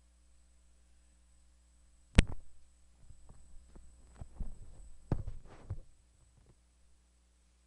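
A sharp knock about two seconds in, then a run of irregular softer thumps and rustles for about three seconds, over a steady low electrical hum.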